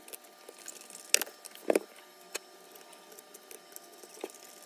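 Sharp clicks and light knocks of plastic and metal parts as a Makita GA9010C angle grinder's housing is handled while its carbon brushes are refitted, four or so separate clicks, the loudest about a second in, over a faint steady hum.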